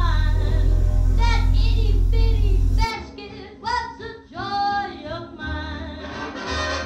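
Music with a high singing voice. A steady deep drone underneath stops abruptly about three seconds in, and the singing carries on more quietly.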